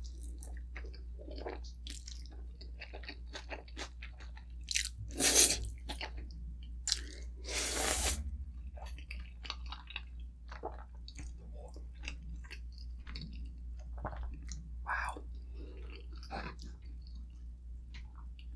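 Close-miked chewing and mouth sounds of someone eating pancit canton stir-fried egg noodles, many small wet clicks, with two louder, longer sounds about five and eight seconds in.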